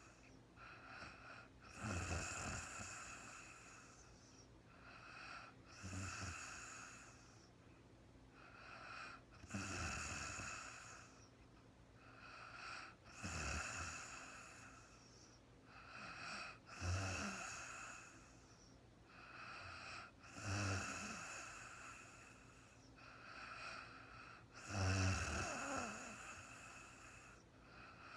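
A sleeping woman snoring, one snore about every three and a half seconds, eight in all. Each is a short low rattle with breathy hiss.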